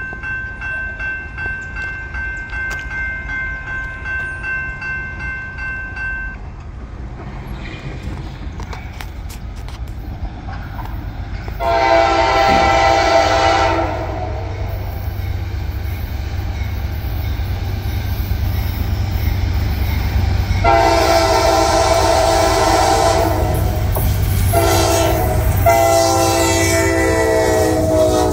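Norfolk Southern freight locomotive horn sounding the grade-crossing signal: two long blasts, a short one, then a final long blast as the locomotive reaches the crossing. Before that, for about the first six seconds, the crossing signal's bell rings. The low rumble of the approaching train runs underneath.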